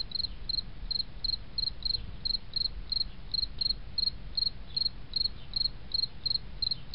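Cricket chirping steadily, about three short high chirps a second, over faint low background noise.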